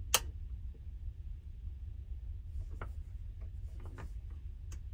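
Steady deep hum of a large ferry's engines carried through the hull into a cabin berth. A sharp click comes just after the start, and a few fainter clicks and ticks follow near the middle and toward the end.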